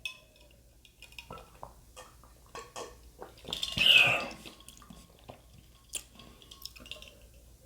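Drinking from a glass of ice water: small clinks and taps of ice and glass, with one louder drinking sound about four seconds in.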